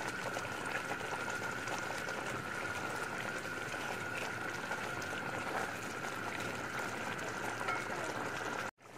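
Chicken pieces in a thick spiced tomato gravy simmering and bubbling in an aluminium pot, with a steady high tone in the background. The sound cuts out abruptly just before the end.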